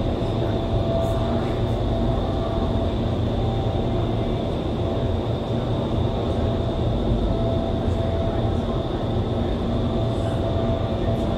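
Indoor skydiving vertical wind tunnel running: a steady rush of high-speed air with a constant fan hum and a faint high whine.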